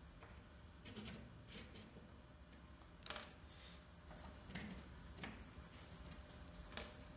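Faint clicks and light scraping of a black plastic Lamello Bisco P connector being pushed by hand into its milled slot in a chipboard panel. The sharpest click comes about three seconds in, and another comes near the end.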